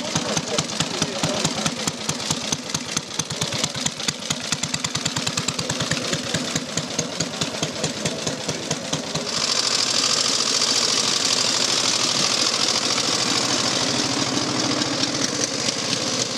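A veteran pre-1915 motorcycle engine, the 600cc Excelsior, running with an even, rapid beat of firing strokes. About nine seconds in, this gives way to a smoother-running engine sound with a loud hiss over it.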